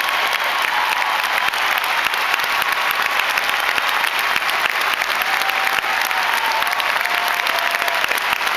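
Large crowd in an arena applauding steadily, a long ovation.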